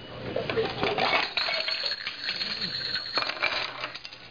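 Pieces of a Rube Goldberg chain-reaction device clicking and clattering as they fall and knock into one another, a rapid scatter of small, sharp knocks.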